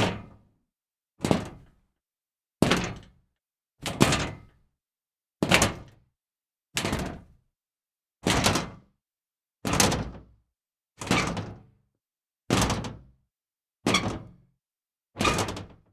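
Scrap metal being kicked again and again: about a dozen separate clanking thuds, one roughly every second and a half, each dying away quickly.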